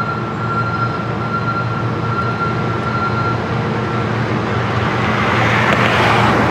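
BNSF diesel freight locomotives approaching, their engines running with a steady low rumble that grows slightly louder near the end as a rushing hiss builds.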